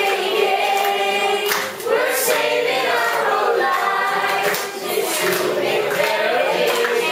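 A choir of voices singing a song, with sustained, gliding sung notes.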